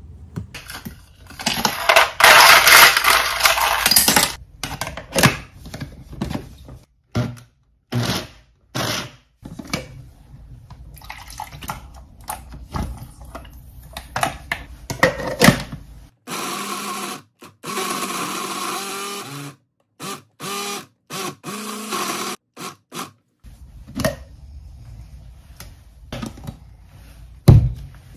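Countertop blender motor running steadily for about three seconds, then switched on and off in a run of short pulses, blending a berry-and-yogurt smoothie. Before that, a loud rush of noise and scattered clicks and knocks come from handling the jug and ingredients, and a sharp knock sounds near the end.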